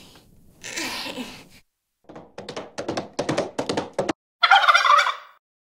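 A quick run of about ten clattering knocks, like hoofbeats, then a short loud whinny about a second long: a cartoon horse logo sound effect.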